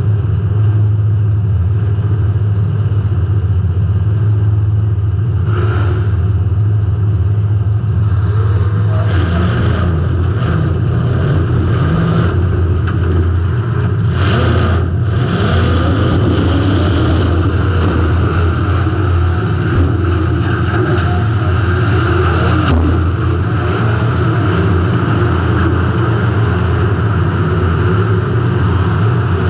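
Derby car's engine running hard from inside the car, with revving. Several sharp bangs, which fit hits from other cars, come through over the middle part.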